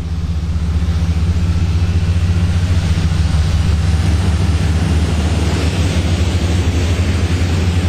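Airbus A380 jet engines running on the ground during their first engine runs: a steady, loud low rumble under a broad rushing roar.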